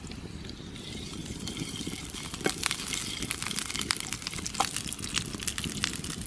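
Liquid bubbling and sizzling in a frying pan over a campfire, with sharp crackles and pops from the burning red pine firewood beginning about two and a half seconds in.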